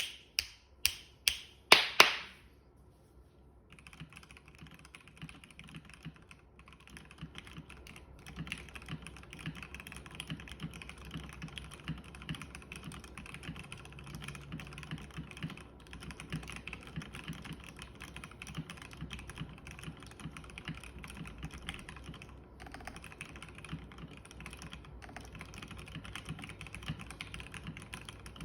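Matrix Noah mechanical keyboard with lubed Marshmallow switches, an aluminium plate and PBT keycaps being tested. It opens with a quick run of about five loud single key presses, then after a short gap there is steady, fast typing.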